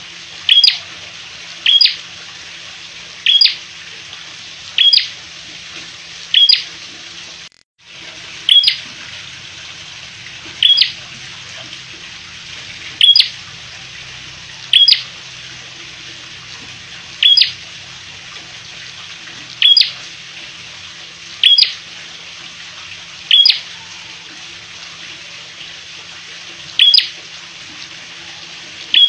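Tailorbird (prenjak) calling: a loud, sharp chip note repeated about every one and a half to two seconds, over a steady hiss.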